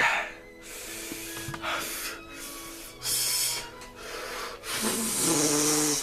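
A man breathing hard through his mouth, four sharp hissing breaths in and out, the last one longer and ending in a low groan that slides down in pitch. He is trying to cool a mouth burning from a very hot chilli pepper.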